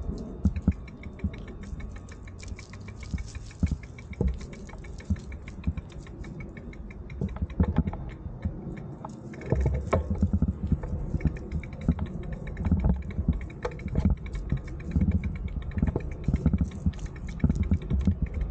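A bicycle being rolled slowly, with rapid light ticking from its freewheel and scattered clicks and knocks. A low rumble grows louder about halfway through.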